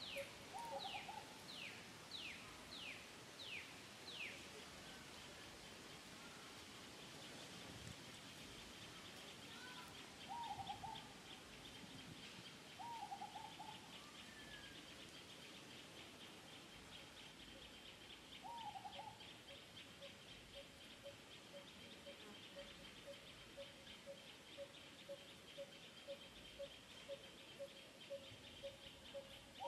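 Birds calling: a run of six quick falling whistles in the first few seconds, a short call repeated a handful of times, and from about halfway on a steady run of quick, low-pitched hoots, with a faint fast chirring behind it all.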